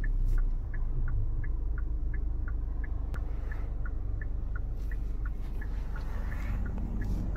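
Hyundai SUV's turn-signal indicator clicking about three times a second in an alternating tick-tock, over the steady low hum of the engine and road noise inside the cabin.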